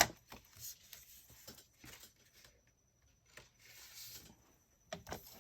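Faint paper-handling sounds as black cardstock is handled and cut into pieces: soft rubbing and sliding, a brief swish a little before the end, and a few light clicks.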